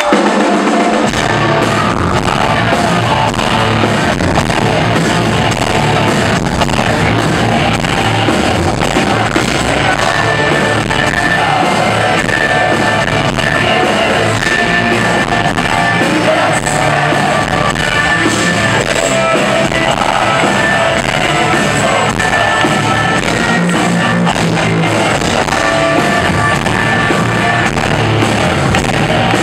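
Medieval folk-metal band playing live: drums, distorted electric guitar and bagpipes with a male singer, recorded loud with harsh, distorted sound. The drums and bass come in within the first second.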